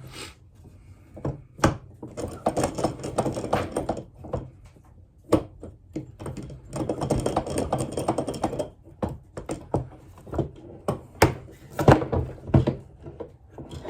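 Fulton clamps and wax paper being handled and taken off a glued-up wooden board: a string of sharp knocks and clicks of clamp parts against wood, with two longer stretches of rustling and scraping.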